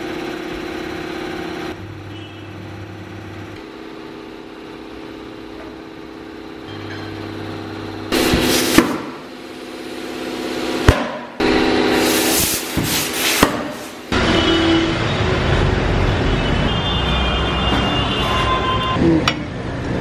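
Tyre-changing machine at work as a car tyre is mounted on its wheel: the machine's motor hums in short runs, then there are loud bursts of compressed-air hiss with a couple of sharp snaps as the tyre is inflated. A rougher stretch of workshop clatter follows.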